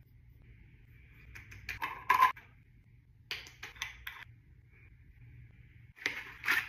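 Close-up handling sounds of a skincare routine: a dermaplaning blade scraping over the face, then a jar and a paper packet being handled. They come as three clusters of short scratchy clicks and rustles, the loudest about two seconds in.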